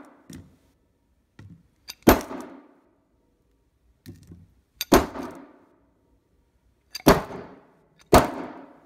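Adjustable monkey wrench striking a smartphone with a shattered screen against a hard floor: four heavy metal-on-glass blows, about two to three seconds apart with the last two closer together, each with a brief clanging ring, and a few light taps between them.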